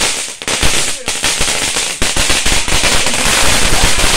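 A string of firecrackers going off in rapid, dense succession, a continuous crackle of sharp bangs that gets thicker and louder about halfway through.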